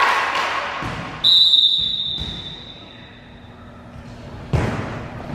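Volleyball referee's whistle blown once, a single steady high blast of nearly three seconds that fades, signalling the serve. About four and a half seconds in, a sharp thump of the volleyball being struck on the serve, echoing in the gym.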